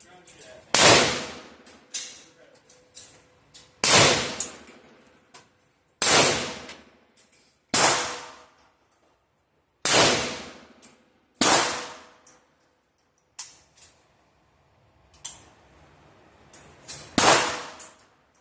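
Gunshots on a firing range: eight loud, sharp shots spaced one to two and a half seconds apart, with fainter shots between, each followed by a short high ringing tail.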